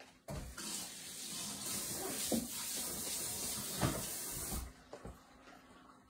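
Water running from a tap for about four seconds, turned on and off abruptly, with two brief louder moments partway through.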